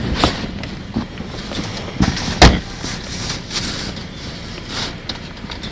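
Boots crunching and sinking into deep, loose snow in a drift: a run of irregular crunches, the loudest about two and a half seconds in.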